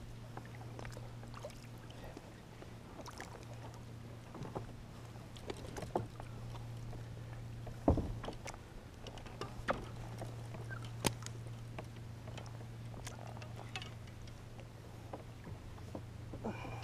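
Water lapping against a kayak hull, with scattered small knocks and clicks of gear on the hull and a sharper knock about eight seconds in, over a steady low hum.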